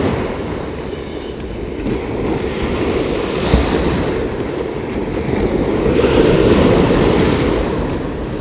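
Waves breaking and washing onto the shore, a loud rushing noise that swells and fades every few seconds, with a brief thump about three and a half seconds in.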